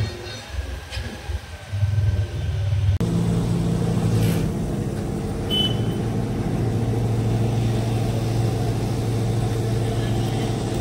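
Petrol pump fuel dispenser's motor starting abruptly about three seconds in and then humming steadily. Before it starts there is uneven low rumbling.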